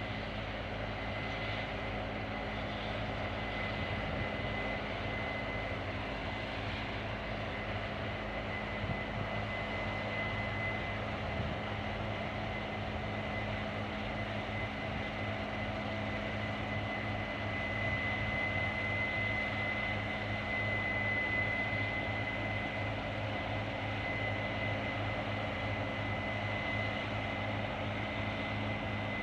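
Combine harvester running steadily under harvest load: an even engine drone with a constant high whine.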